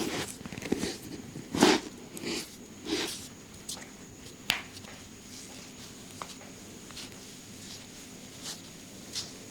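Hands massaging a person's head and back: a few short rubbing strokes in the first three seconds, then scattered sharp clicks, the clearest about four and a half seconds in, over a faint steady hiss.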